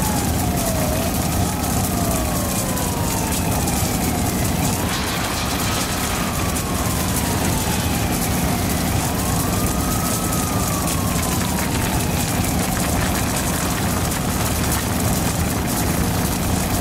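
An emergency vehicle siren wailing, slowly rising and falling in pitch every four to five seconds, over a steady low engine hum and a constant rushing noise.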